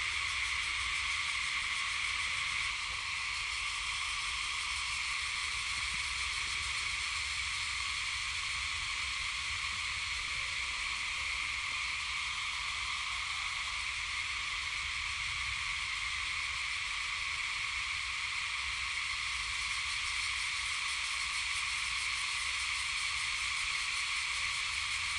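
Steady, unbroken insect chorus from the surrounding woodland, an even high-pitched buzz, with a low steady rumble underneath.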